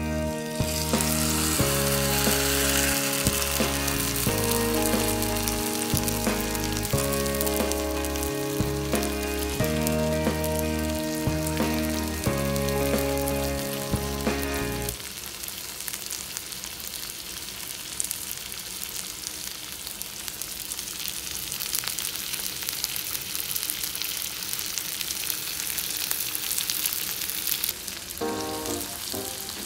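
Thick beef steak sizzling as it cooks on the barbecue: a steady hiss with fine pops. Background music plays over it for the first half, stops about halfway and comes back near the end.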